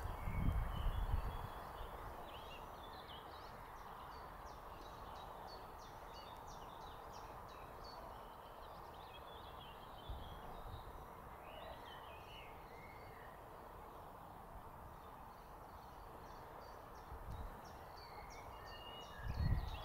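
Birds chirping and singing over a steady outdoor hiss. Brief low thuds come about a second in and again near the end.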